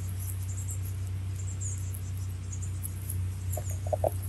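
Faint high-pitched chirping of small wildlife, scattered short chirps over a steady low hum, with a few brief mid-pitched tones near the end.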